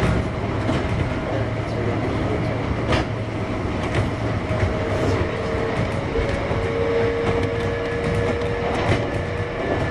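Kintetsu 1021 series electric train (Hitachi GTO-VVVF) running, heard from inside the car: steady wheel-on-rail noise with occasional rail-joint clicks. A steady whine comes in about halfway through.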